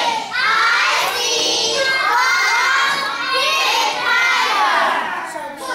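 A class of young children calling out words together in unison, in a run of short phrases with brief breaks between them.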